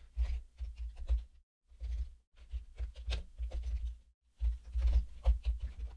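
Typing on a computer keyboard: quick runs of keystroke clicks with a dull thud to each stroke, broken by short pauses twice.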